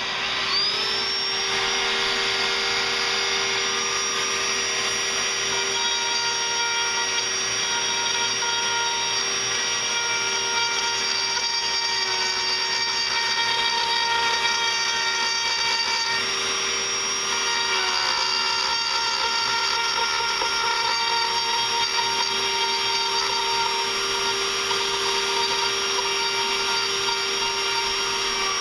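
Dremel rotary tool spinning up about half a second in, then running at a steady high whine as it carves tear-out from the carved letters of a wooden sign, its pitch shifting slightly as the bit loads.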